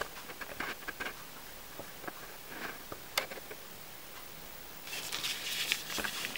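Faint handling noise from gloved hands at work: scattered small ticks, one sharper click about three seconds in, and a rustle in the last second and a half.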